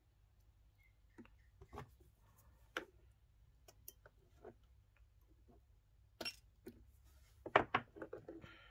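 Battery spot welder set to its highest output (level 5), firing a pulse through a nickel strip onto an 18650 cell: a sharp snap amid small clicks and taps of the welding pens and strip, followed by a few louder knocks near the end.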